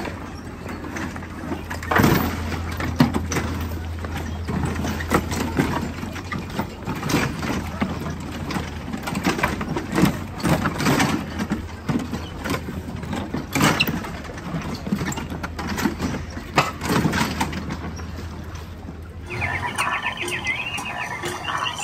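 Theme-park ride vehicle running, heard from on board: a steady low hum under frequent irregular clacks, knocks and squeals. About nineteen seconds in it cuts abruptly to a different recording with short, high repeated chirps.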